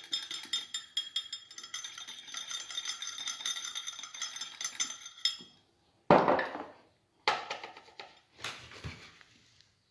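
Kitchen utensils rattling and clinking rapidly with a metallic ring while flour is measured out, stopping after about five seconds. Then three loud knocks about a second apart, the first the loudest, as things are set down on the counter and the kitchen scale.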